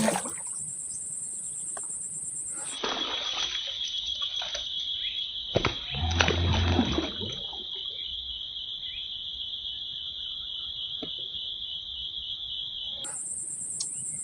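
Insects buzzing steadily, a very high shrill drone that gives way to a lower shrill one about three seconds in and returns near the end, over scattered water splashes and handling clicks. About six seconds in there is a louder, heavier splash or knock lasting about a second.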